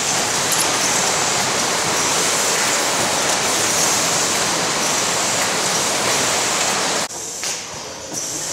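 Automated greenhouse pot-handling machinery running, a steady hiss-like noise from the pot-placing gripper and conveyors. About seven seconds in it drops suddenly to a quieter, more uneven running of a belt conveyor carrying potted plants.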